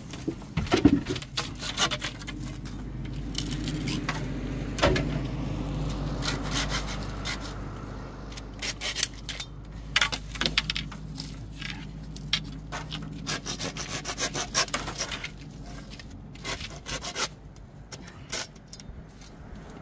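Small hand saw cutting through dry bamboo poles: fast rasping strokes in short runs, with pauses between them.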